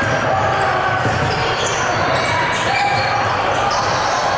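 Basketball game sound in a gym: a ball bouncing on the court over steady crowd chatter.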